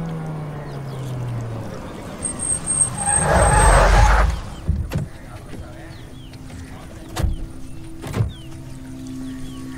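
Motorcycle engine running as it rides up, its pitch dropping over the first second or so, then a loud noisy surge about three to four seconds in, followed by three sharp clicks.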